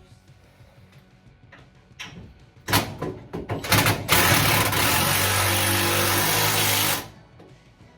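Power wrench running bolts tight on a sway bar mounting: a few short bursts, then about three seconds of steady running that stops sharply.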